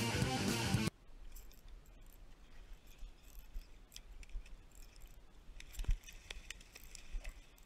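Guitar music that cuts off about a second in, then quiet with scattered light clicks from a spinning reel being cranked, and a dull thump about six seconds in.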